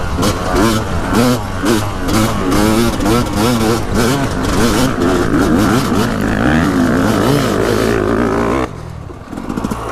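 Yamaha YZ250 two-stroke dirt bike engine ridden hard uphill and heard from on the bike, its revs climbing and falling again and again as the throttle and gears are worked. Near the end the throttle is shut and the engine note drops away sharply.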